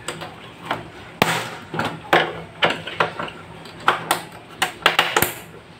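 Thin pry tool levering at the plastic back cover of a Samsung LCD monitor: a string of irregular sharp plastic clicks, snaps and taps as the tool works at the cover's clips.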